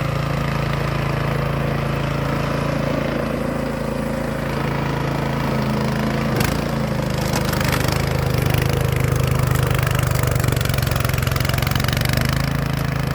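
Snow blower's gas engine running steadily, with one short sharp knock about six seconds in.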